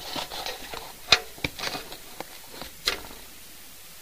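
Several short, sharp taps, the loudest about a second in and another near three seconds, over faint room noise.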